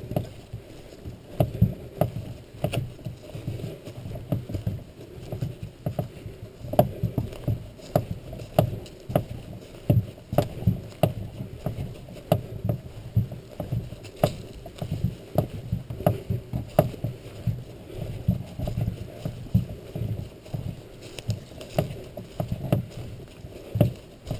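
Footsteps on a forest trail carried up into a skin-on-frame canoe borne overhead: a steady run of dull thumps at walking pace, about two a second, with light knocks and clicks from the canoe's wooden frame and yoke shifting with each step.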